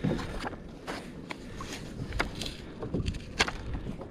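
Light clicks and knocks of hands and gear being moved about on a fishing kayak's deck, scattered through, the sharpest about three and a half seconds in, over faint wind and water noise.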